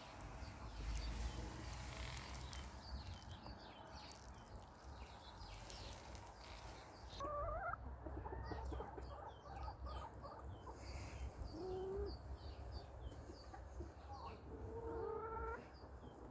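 White Silkie chickens calling: repeated short, wavering squawks and clucks begin about seven seconds in and grow longer near the end, over faint high chirping.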